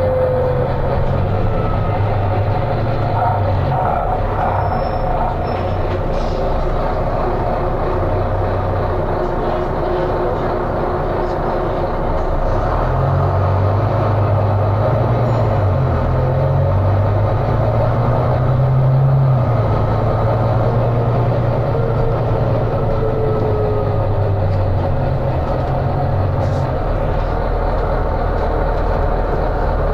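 Volvo B9TL bus's diesel engine running under load, loud and thrashy, its pitch rising and falling several times as it revs up and eases off. Faint whistling tones slide up and down in pitch above it.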